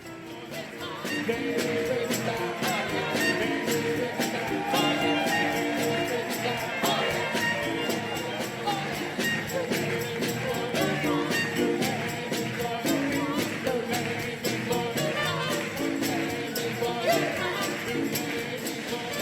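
Music with a steady beat of light high percussion over sustained pitched parts, swelling up over the first second or two.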